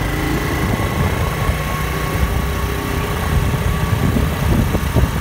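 Honda motorcycle being ridden along a paved road: the engine runs steadily under a loud rush of wind noise.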